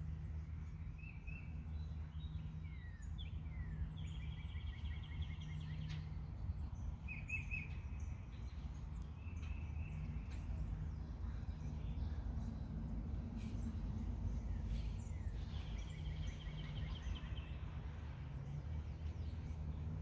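Songbirds calling outdoors: scattered short chirps and two quick trills of rapidly repeated notes, over a steady low rumble.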